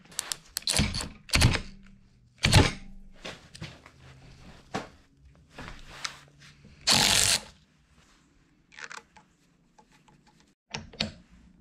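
Clicks and knocks of hand tools and metal parts being handled at a differential carrier's ring gear bolts, the sharpest knock about two and a half seconds in. There is also a brief rushing noise about seven seconds in.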